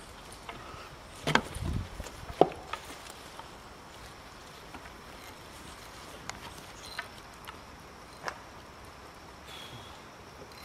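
A handful of sharp clicks and knocks, a few seconds apart and loudest about two seconds in, from a climber's carabiners and safety gear on a ropes-course platform.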